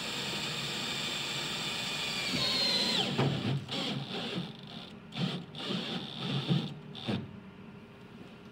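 Cordless drill running steadily as it bores a hole through the wall of a plastic cold water storage tank, its whine creeping up in pitch before it stops suddenly about three seconds in. Several short, uneven bursts and knocks follow.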